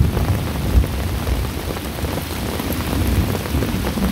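Steady rain falling, with an irregular low rumble underneath.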